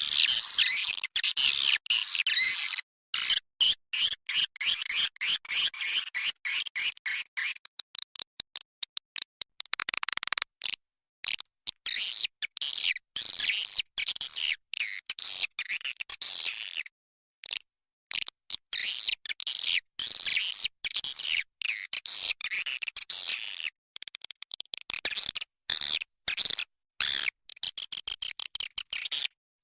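A recording of edible-nest swiftlet calls: fast high-pitched twittering and rapid trains of clicks, broken again and again by short, abrupt silent gaps. It is a lure call played in swiftlet houses, here one meant for the breeding season.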